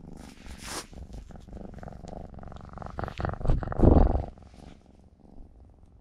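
Ragdoll kitten purring close by in a steady rapid rumble, loudest for a moment about four seconds in and then fading.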